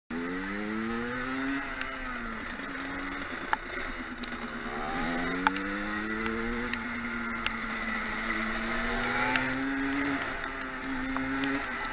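50cc two-stroke motorcycle engine fitted with a Metrakit Pro Race expansion exhaust, under way, its revs climbing and dropping several times. A couple of sharp clicks are heard in the first half.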